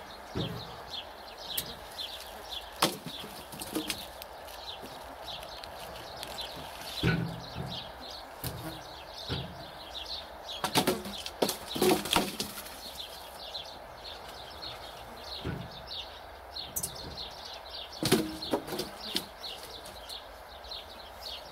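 Small birds chirping steadily in the yard, broken by a few sudden knocks and thumps.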